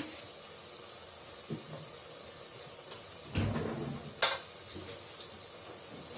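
Chicken and onion masala sizzling gently in an aluminium pressure cooker. A dull knock comes a little past three seconds, and a sharp click follows about a second later.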